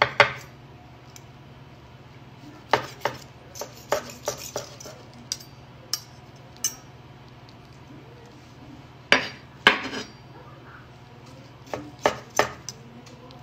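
Chef's knife slicing cooked chicken breast and knocking on a wooden cutting board, with a metal fork clinking against the blade and board: irregular sharp taps in small clusters, the loudest about nine and a half seconds in.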